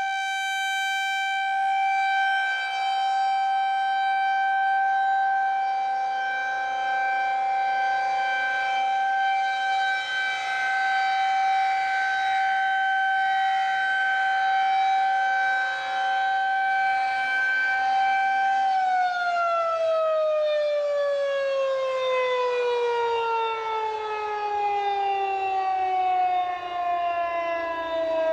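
A Federal Signal 2001-130 electromechanical outdoor warning siren sounding a steady alert tone, one pitch held for about eighteen seconds. It then winds down, the pitch falling steadily as the rotor slows.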